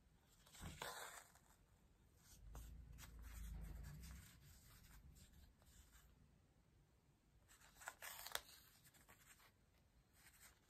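Faint sounds of hand embroidery: embroidery thread drawn through fabric with a soft rasp, about a second in and again near the end, with a low rumble in between.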